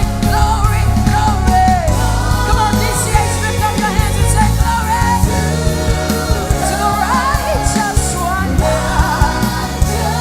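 Live gospel worship music: singers and a choir singing with a full band behind them.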